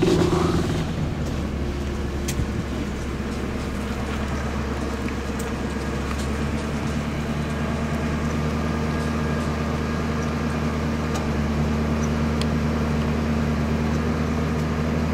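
A vehicle engine running steadily at idle, a low, even hum.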